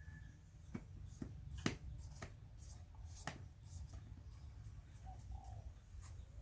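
A few scattered sharp clicks and taps, the loudest about a second and a half in, over a low steady hum.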